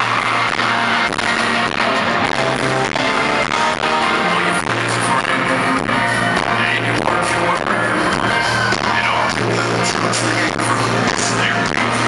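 Live country band playing the song loud through the concert sound system, heard from the audience: electric guitar and pedal steel guitar over a steady drum beat.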